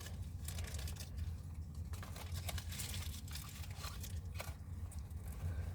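Clothing rustling and small items crinkling and clicking as things are pulled out of a pocket close to the microphone, over a steady low hum.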